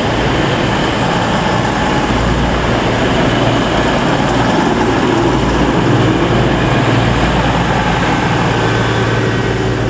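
Class 221 Super Voyager diesel-electric train running into the station past the platform, its underfloor diesel engines giving a steady low hum over the noise of wheels on rail.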